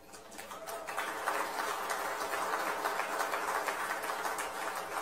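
An audience applauding, the clapping building up over about the first second and then holding steady.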